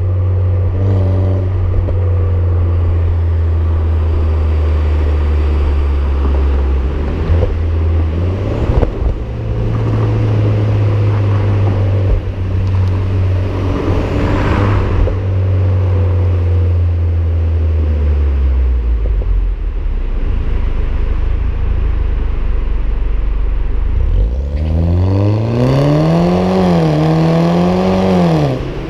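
BMW F20 116i's turbocharged petrol engine heard through a Supersprint aftermarket exhaust, close to the tailpipe. It holds a steady low drone while driving, then revs up and down a few times near the end.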